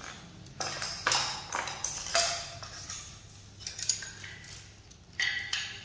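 Light metallic clicks and pings from the metal pedal-mounted kickstand of a Brompton folding bike: about six short knocks, two of them ringing briefly.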